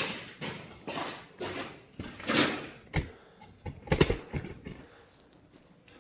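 A string of irregular knocks, bumps and rustles, like things being handled and set down, the sharpest a knock about four seconds in, then quiet for the last second or so.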